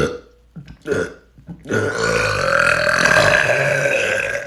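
A man's long, loud, deliberate burp, starting a little under two seconds in and lasting about two and a half seconds, after a couple of brief sounds.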